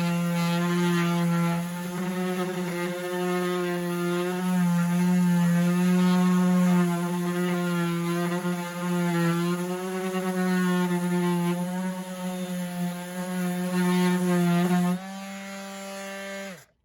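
DeWalt DCW210 20 V brushless random orbital sander running on a wooden surface, a steady hum that wavers slightly as the pressure changes. About 15 seconds in it gets quieter, then it is switched off and its pitch falls as the pad winds down.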